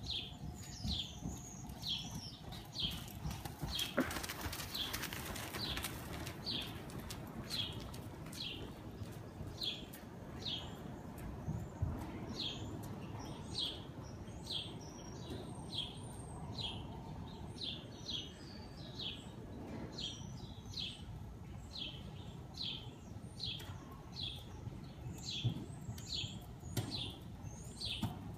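A small bird chirping over and over, a short high chirp about every 0.7 seconds, over a steady low rumbling noise.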